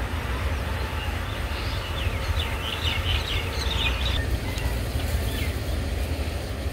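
Outdoor field ambience: a steady low rumble runs throughout, and small birds give a quick flurry of short, high chirps in the middle.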